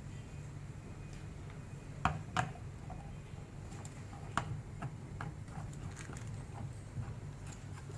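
A few scattered sharp clicks and light knocks: handling noises, over a low steady hum. No drill is running.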